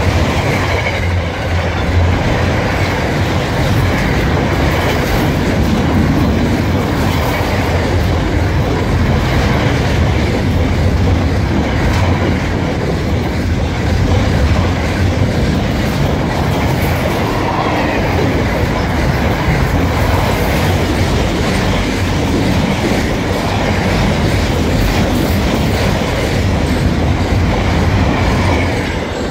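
Container wagons of a long intermodal freight train rolling past at speed: a steady noise of steel wheels running on the rails, dropping away near the end as the last wagon goes by.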